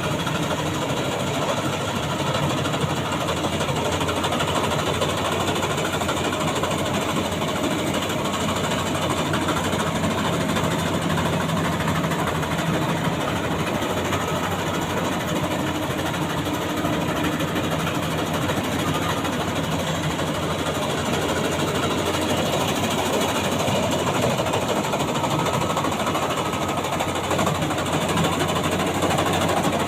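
Maxxi Bimo 102 rice combine harvester running steadily, its engine and machinery making a continuous dense mechanical rattle.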